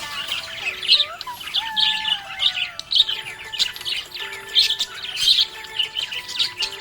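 Budgerigars chirping and chattering in quick, overlapping calls with no break, the happy warbling of contented budgies.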